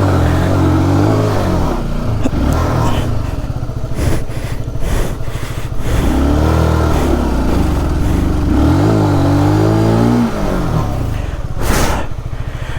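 Honda CBR150R's single-cylinder engine revving up and down several times under load as the bike struggles on a loose, stony track and makes little headway, with a few clatters from the stones and a brief rush of noise near the end.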